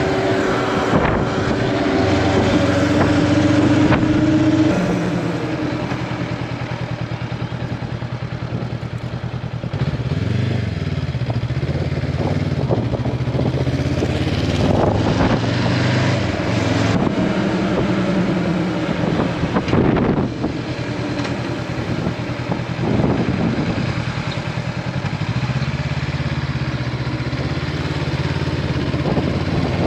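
Honda CB500X's parallel-twin engine running on the move, its pitch rising and falling several times with throttle and gear changes.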